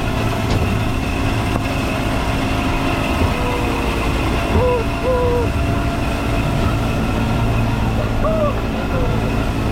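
Engine of a park tourist train running steadily during the ride, a continuous low drone.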